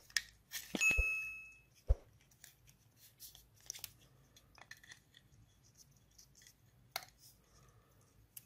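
Light plastic clicks, taps and rustles of an opened plug-in charger's case and circuit board being handled, with a short ringing clink about a second in.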